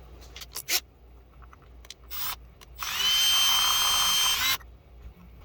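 Small electric drill drilling the head off a stripped fan screw: a brief spin about two seconds in, then nearly two seconds of steady running with a high whine that stops suddenly. A few light clicks come before it.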